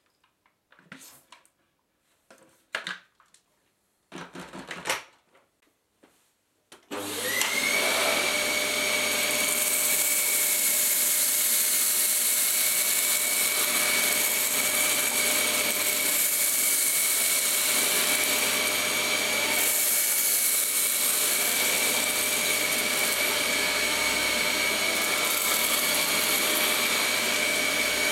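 A few knocks and clicks as the Dyson DC11's cyclone bin is handled, then about seven seconds in the Dyson DC11 cylinder vacuum cleaner switches on. Its motor whine rises quickly and then runs steadily with a high whistle over rushing air as it vacuums litter off a carpet.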